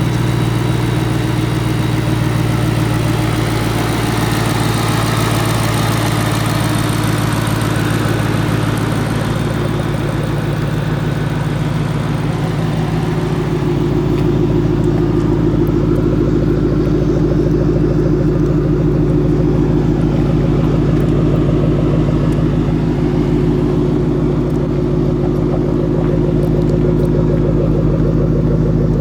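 2014 Ford Mustang Shelby GT500's supercharged 5.8-litre V8 running steadily at idle. About halfway through, the higher hiss fades and the low engine note becomes stronger.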